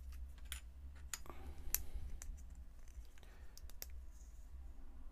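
Small plastic model-kit parts clicking against each other in the fingers as they are test-fitted: light, irregular clicks, the sharpest a little under two seconds in, over a steady low hum.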